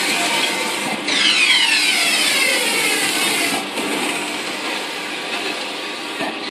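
WitColor Ultra 9200 3.2 m eco-solvent large-format printer running as it prints a banner, its print-head carriage moving across the media with a steady mechanical whirr. A falling whine starts about a second in.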